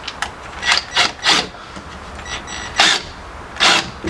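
A 2.5-inch wood screw being driven by hand through a door hinge into the jamb, in a series of short, irregularly spaced turning strokes.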